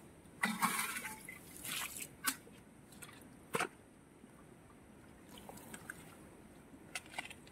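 Muddy water thrown from a metal pot splashing onto grass, loudest about half a second in, with another splash soon after. Then quieter wet squelches and small splashes as hands feel through a shallow muddy puddle.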